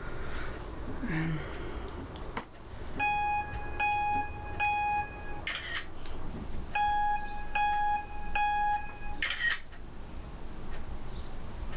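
Electronic alert tone from a laptop: two runs of three short, even beeps, each run ending in a brief hissy burst. A single click comes shortly before the first run.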